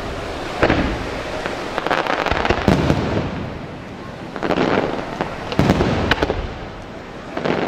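Aerial fireworks display: fireworks shells bursting in a string of sharp bangs. There is a quick cluster of reports about two to three seconds in, and the loudest bangs come near six seconds.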